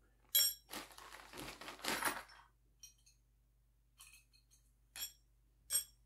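Metal clinking of a wrench and hose fittings as a hose fitting is taken off a dive compressor's air filter. There is a sharp clink, then about two seconds of rustling and scraping, then three lighter clinks.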